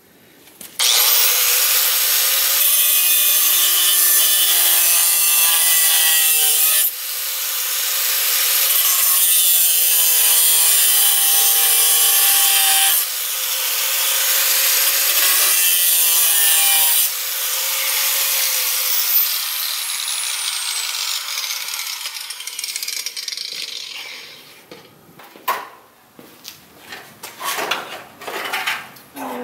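Angle grinder with a 4½-inch cut-off wheel grinding through the sheet-metal welds of a radiator support in three long passes, briefly easing off between them. The grinder then winds down with a falling whine, and a series of sharp metal knocks and clanks follows near the end as the support is worked loose.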